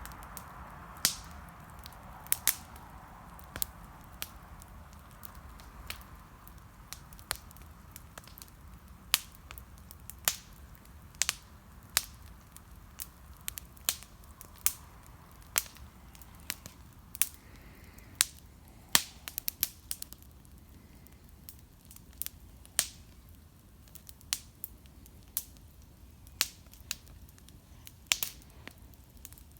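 Wood fire crackling: sharp, irregular pops and snaps, roughly one a second and sometimes two in quick succession, over a low steady hum.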